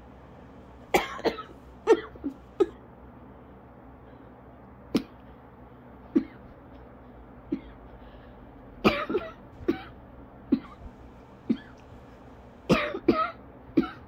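A person coughing in short, sharp coughs, some coming in quick runs of two or three, with pauses between them: an asthma coughing fit that keeps her from taking normal breaths.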